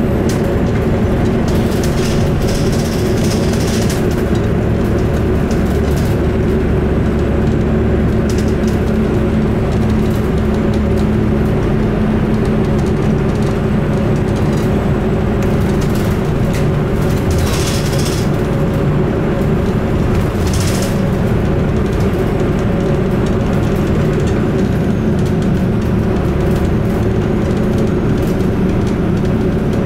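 Inside a moving bus: steady engine drone and road noise. Short bursts of hiss come about two to three seconds in and twice more later on.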